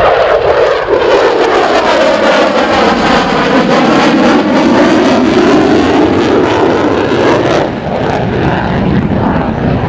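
An F-14B Tomcat's twin General Electric F110 turbofans roaring loudly as the jet makes a low pass. The roar's pitch pattern sweeps down and then back up as the jet goes by.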